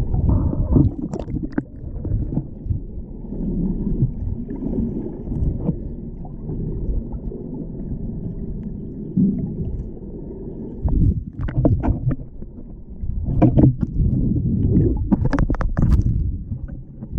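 Muffled rumble and gurgle of seawater moving around an action camera's waterproof housing while swimming in the open ocean. A run of sharper splashes and clicks comes in the second half.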